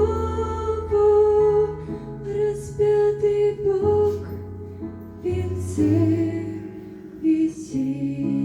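Slow, gentle instrumental music: sustained chords over a bass line that moves every second or two.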